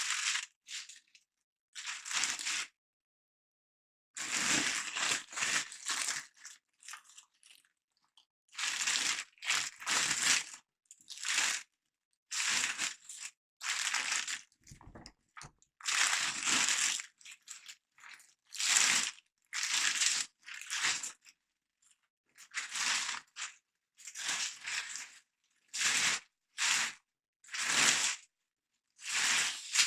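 Repeated short bursts of crinkling and rustling handling noise as computer parts and their packaging are handled, each lasting well under a second to about a second, with short gaps between.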